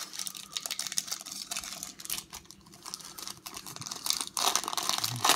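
Wrapper of a small trading-card pack handled and torn open by fingers: a run of small, irregular crinkles and ticks, denser and louder about four seconds in.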